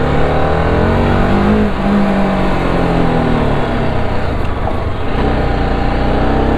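TVS Apache RR310's single-cylinder engine pulling under way, its note rising over the first couple of seconds and then holding steady.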